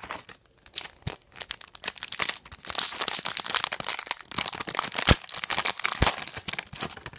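Foil wrapper of a 2002 Fleer Triple Crown baseball card pack crinkling as it is handled and torn open: a dense run of crackles, loudest in the middle, with a couple of sharp snaps near the end.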